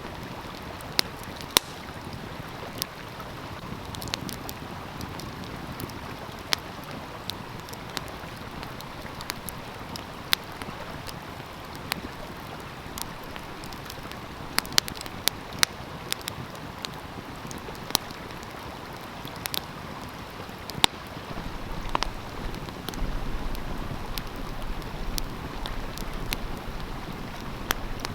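Wood fire crackling with sharp, irregular pops over the steady rush of a flowing stream. Wind on the microphone adds a low rumble from about three-quarters of the way in.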